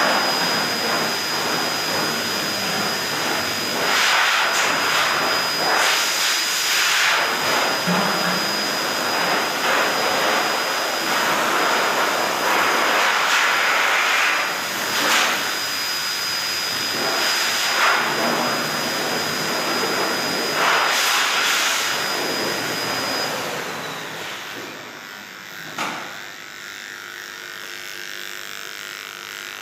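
Electric dog clippers buzzing as they are run through a Shih Tzu's coat, over a loud, steady whooshing motor with a high whine, with louder surges every few seconds. About 24 seconds in, the whooshing motor winds down and stops, leaving a quieter hum and a single sharp click.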